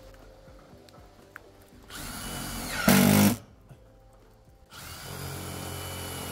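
Power drill working into metal siding in two runs. The motor whirs steadily for about a second, then gives a short, much louder, harsher burst and stops. A second run starts near the end.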